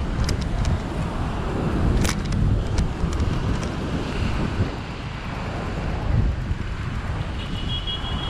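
Wind buffeting the microphone of a moving bicycle camera in a dense low rumble, with a few sharp knocks, one about two seconds in, and a brief high chirp near the end.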